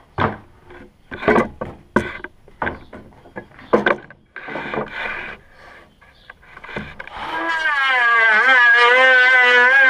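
Wooden boards clunking and knocking as they are shifted on sawhorses, then about seven seconds in an electric hand planer starts up and runs, its whine dipping and recovering in pitch as it cuts along the board.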